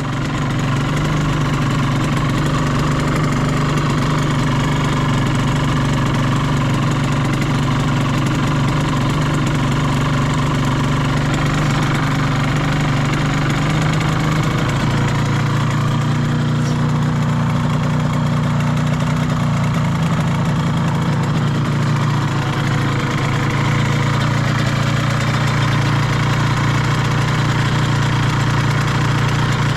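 Suzuki RGV250Γ SP's two-stroke V-twin idling steadily through Sugaya street expansion chambers. The seller describes the swapped-in engine as running without abnormal noise.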